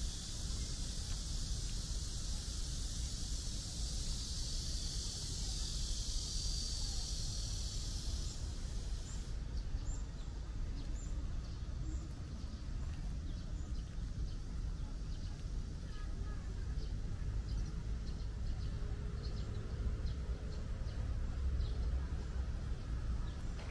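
Cicada chorus, a steady high-pitched drone that stops suddenly about nine seconds in, leaving scattered bird chirps over a low outdoor rumble.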